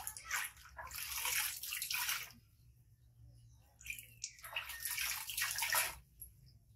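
Water splashing and dripping as hands dip into a plastic tub of water and wash a baby monkey's paws, in two bouts of splashing with a short lull about two seconds in.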